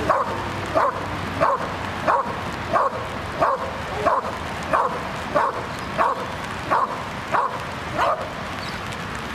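Belgian Malinois barking steadily at a protection helper, about three barks every two seconds: the bark-and-hold, guarding the helper by barking without biting. The barking stops near the end as the dog settles.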